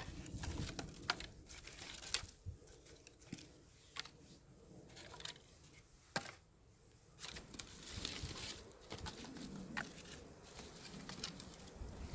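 Irregular small clicks and rustling, like material being handled at close range, with a brief quiet lull about halfway through.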